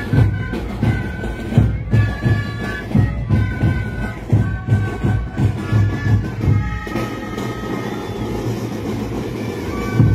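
A marching band of drums and wind instruments playing a march tune. High held melody notes ride over drum beats about twice a second, and the drumming drops back for a few seconds in the second half.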